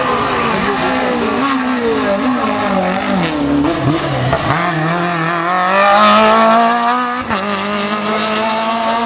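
Rally car engines revving hard, the pitch climbing and dropping as the drivers shift and lift. The sound builds to its loudest about six seconds in, then cuts abruptly to another car a little after seven seconds.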